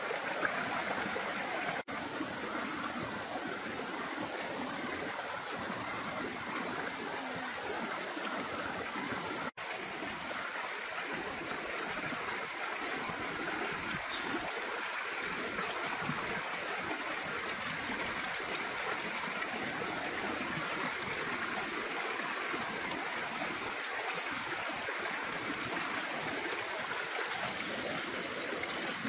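Steady trickling, rushing water, broken by two brief dropouts about two and ten seconds in.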